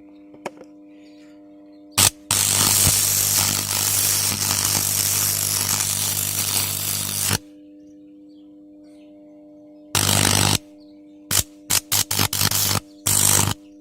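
High-voltage electric arc from a microwave-oven transformer: a loud buzzing crackle with a strong mains hum. It runs for about five seconds from two seconds in, stops, then comes back in several short bursts near the end as the power is switched on and off.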